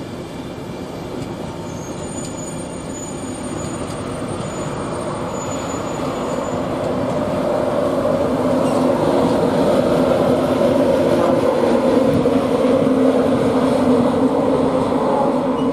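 Class 91 electric locomotive and its Mark 4 coaches running through on the rails, a steady rolling noise and hum that grows louder over the first eight seconds and then holds.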